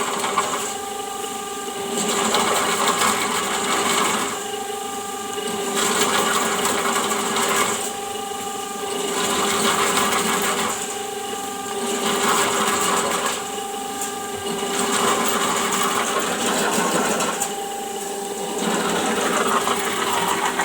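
Electric drain-cleaning machine running steadily with a motor hum, getting louder and rougher about every three seconds, then easing back.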